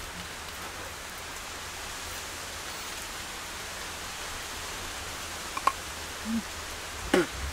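Steady, even hiss of outdoor forest background noise. About five and a half seconds in there is a single sharp click, and near the end a short falling vocal sound.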